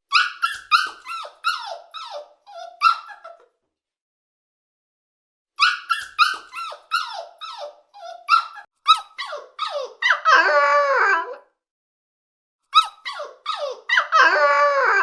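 An animal's high-pitched, squeaky calls: quick runs of short chirps that slide down in pitch, with two longer wavering whines about ten and fourteen seconds in.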